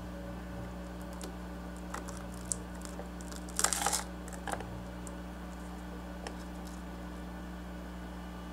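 Tiny knife cutting through a miniature crumb-coated fried shrimp on a wooden board: a few light crisp clicks, then a short burst of crunching about three and a half seconds in. A steady low hum runs underneath.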